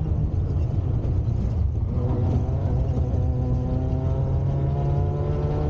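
Peugeot 106 Rallye rally car's four-cylinder engine running hard, heard from inside the cabin. It dips briefly about two seconds in, then climbs steadily in pitch as the car accelerates.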